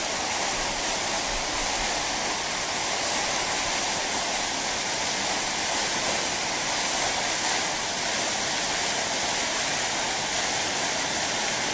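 A waterfall: water falling steadily down a rock face, a constant even rush of noise with no breaks or changes.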